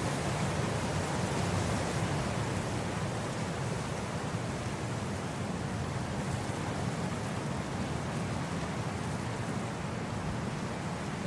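Wind blowing steadily across grass: an even, unbroken rush of noise, weighted toward the low end.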